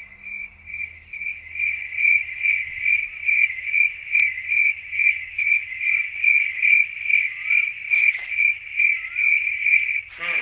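Cricket chirping steadily, a high pulsed trill repeating about three times a second.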